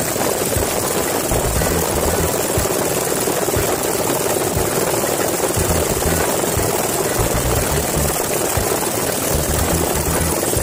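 Helicopter in flight with its doors off: a steady rotor and turbine noise, with uneven low rumbles of wind buffeting the microphone.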